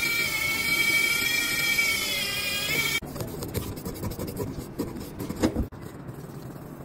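A steady high whine that cuts off abruptly about three seconds in, then small clicks and scrapes of a metal tool and gloved fingers working on the smartphone's frame and internals, with one sharper knock near the end.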